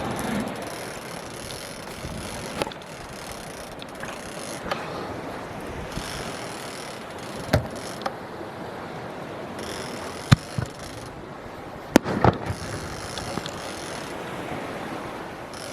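Fireworks popping and cracking now and then, about eight sharp reports spread over the stretch, the loudest two about ten and twelve seconds in, over a steady background rush.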